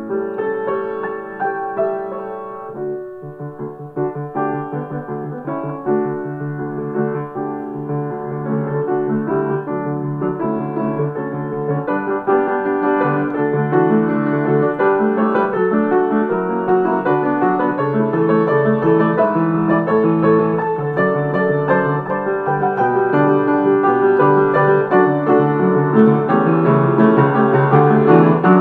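Instrumental piano music, a busy stream of notes that grows gradually louder.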